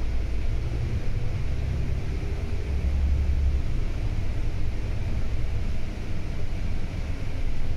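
Volvo B9TL double-decker bus's six-cylinder diesel engine running while the bus drives, with road noise. It is a steady low rumble that is heaviest about three seconds in.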